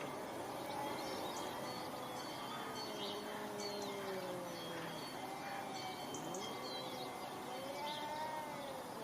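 Domestic cats yowling at each other in a fight standoff: long, drawn-out wails that slowly rise and fall in pitch, sometimes two at once. Birds chirp briefly in the background.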